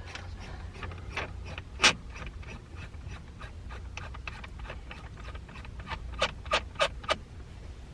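Small irregular clicks and rubbing as a shift knob is handled and twisted onto the threaded shifter, with a sharper run of clicks near the end, over a steady low hum.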